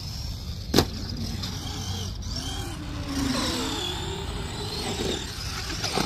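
Arrma Gorgon RC monster truck's brushed electric motor and gears whining, the pitch rising and falling with the throttle, with one sharp knock about a second in. The driver thinks the pinion-to-spur gear mesh sounds too tight.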